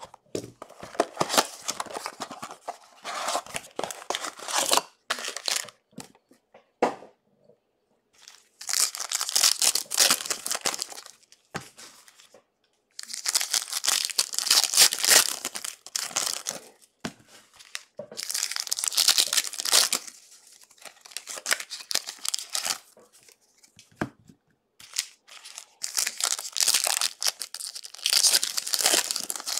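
Trading card pack wrappers being torn open and crinkled by hand, in about five bursts separated by short pauses.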